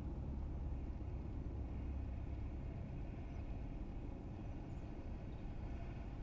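Steady low drone of a light single-engine aircraft's piston engine and propeller, heard from inside the cockpit as the plane flares over the runway to land. It eases a little about three seconds in.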